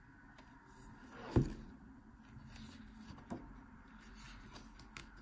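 Pages of a glossy booklet being turned and handled, with a sharp thump about one and a half seconds in and a lighter knock a couple of seconds later.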